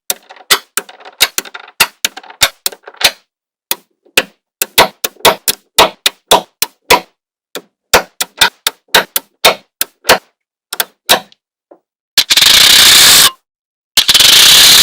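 Small neodymium magnetic balls clicking and snapping together, sharp separate clicks at an uneven pace. Near the end come two loud bursts of rushing noise about a second each.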